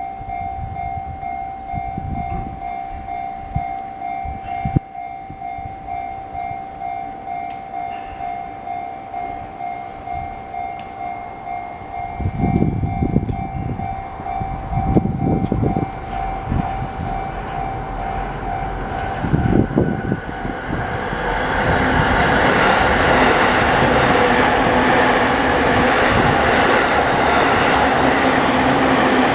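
Japanese railway level-crossing alarm, the JR standard electronic bell with its slightly high pitch, dinging steadily about twice a second. About two-thirds of the way in a train passes close by, its running noise swelling and covering the bell to the end.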